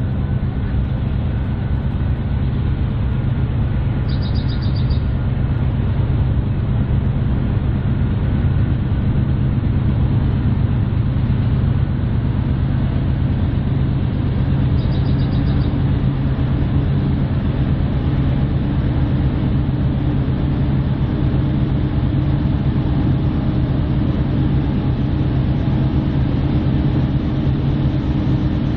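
GE C44-9W diesel locomotive running as it rolls slowly toward the listener, a steady deep rumble growing a little louder and brighter near the end as it closes in. Two brief high chirps sound over it, about four and fifteen seconds in.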